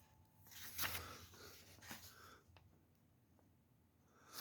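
Paper rustling as a comic book is handled: one louder rustle about a second in, a few softer ones after it and another near the end.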